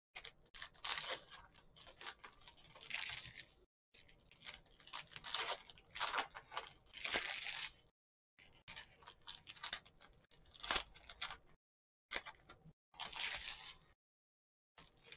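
Trading cards being handled: a foil Panini card pack crinkled and torn open and the cards slid off the stack one by one, a papery rustling and crinkling in irregular short bursts. The bursts are broken several times by moments of dead silence.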